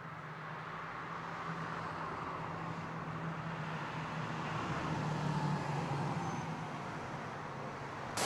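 Outdoor street ambience: steady road-traffic noise with a low hum, swelling a little toward the middle.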